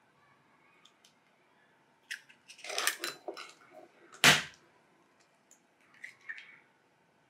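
Eggs being cracked by hand into a glass mixing bowl: light shell clicks and crackles, a single sharp knock about four seconds in as an egg is rapped open, and softer shell crackling near the end.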